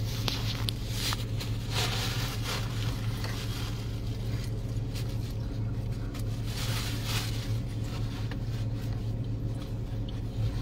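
Steady low drone of a car's engine and road noise heard inside the cabin, with a few soft rustles over it.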